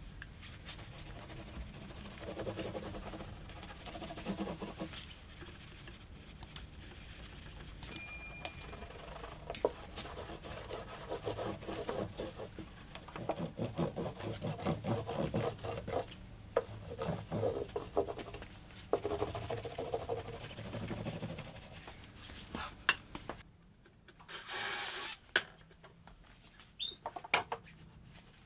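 A large wooden wall panel being handled and slid against a wall: continuous rubbing and scraping with scattered knocks. Near the end comes a loud hiss of about a second.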